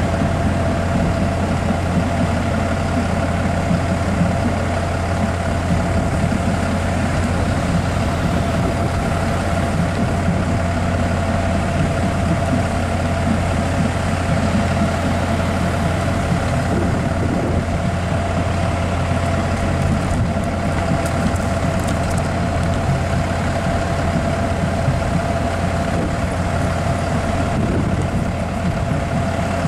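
Large truck engine idling steadily close by, with a steady whine on top.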